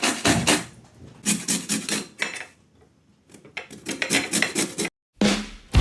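Lemon rind being grated on a hand grater: quick rasping strokes, about three a second, with a short pause a little over two seconds in before the strokes resume.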